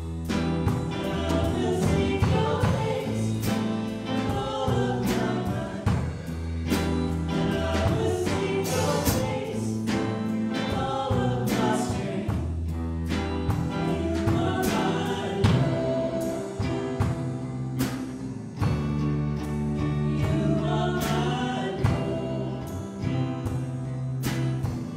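Live worship band playing a song: grand piano and acoustic and electric guitars, with singing over the top.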